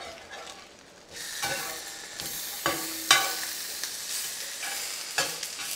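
Tofu slabs sizzling in an oiled cast-iron skillet as they are turned with a metal spatula. The frying hiss swells about a second in, and the spatula clacks sharply against the pan three times.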